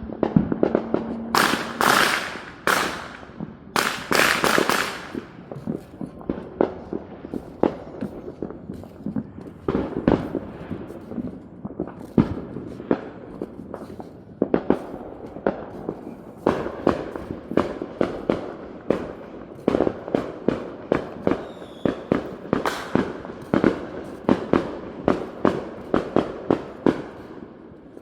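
Fireworks going off all around: a dense, uneven run of sharp bangs and pops, with several louder, longer crackling bursts in the first few seconds.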